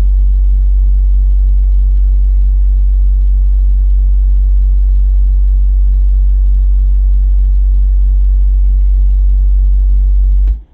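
A 10-inch car subwoofer plays a steady, very loud 48 Hz bass test tone for an SPL meter reading, heard inside the car, then cuts off abruptly near the end. The run scores about 125.4 dB with the window down.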